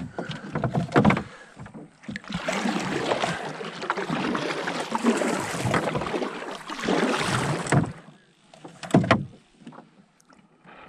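Kayak paddling: a double-bladed paddle dipping and splashing water in a run of strokes, with a few sharp knocks of the paddle and gear against the kayak hull in the first couple of seconds and one brief splash or clatter near the end.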